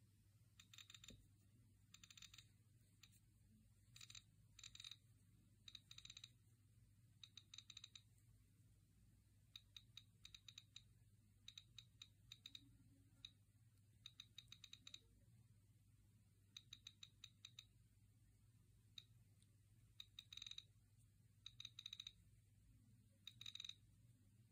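Click wheel of a 5th-generation iPod Nano ticking as it is scrolled through the menu: quiet, crisp clicks, one per menu step, coming in quick runs of several ticks separated by short pauses.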